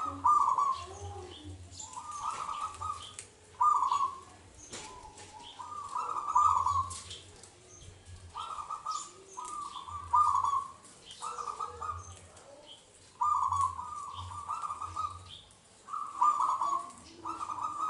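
Zebra dove (perkutut) singing its staccato cooing song: short phrases of quick rolling notes, repeated about every one to two seconds.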